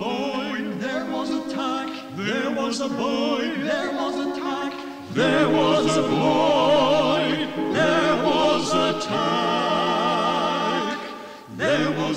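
Amateur choir singing in harmony, several voices with vibrato, in phrases of a few seconds, on an early-1960s reel-to-reel tape recording.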